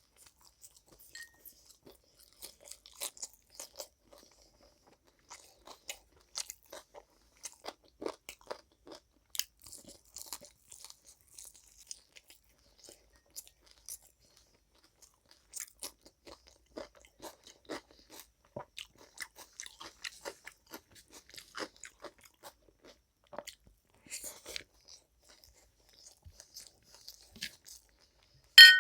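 Close-miked eating: wet chewing and crunching of food in irregular short crackles, quieter for a few seconds midway. Near the end, one sharp loud clink with a brief ring.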